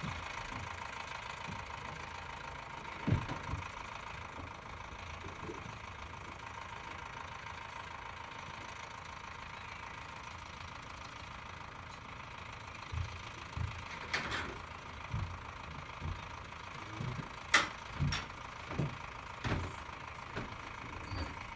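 Tractor engine idling steadily. Short knocks and thumps come about 3 seconds in and then repeatedly in the second half.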